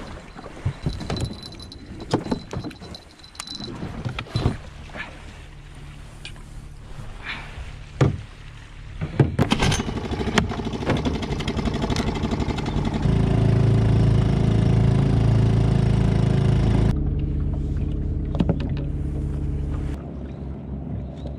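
Small outboard motor on a small boat running steadily, opened up to a louder, faster run about 13 seconds in. Knocks and clatter of gear being handled in the boat come through in the first half.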